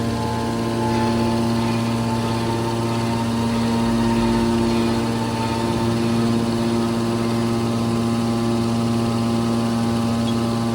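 Aluminium scrap baler running with a steady mechanical hum, its note unchanging, swelling slightly about four seconds in.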